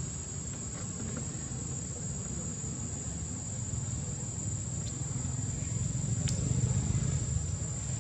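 Steady high-pitched insect drone over a low rumble that grows louder past the middle, with one sharp click about six seconds in.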